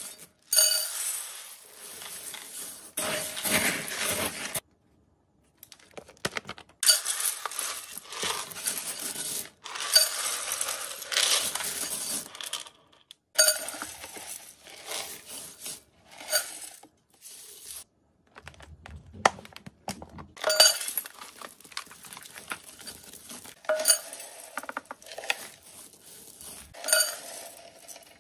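Dry rodent food (pellets, seeds and grains) poured from a stainless steel scoop and plastic tubs into a plastic tub, rattling with sharp clinks of the metal scoop. It comes as several pours with short breaks between them.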